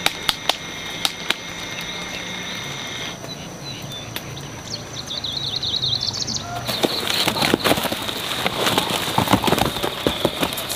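Rural garden ambience: a steady high insect drone and a bird's run of quick rising chirps. About seven seconds in, it gives way to a denser crackling rustle with scattered clicks, like fruit and leaves being handled.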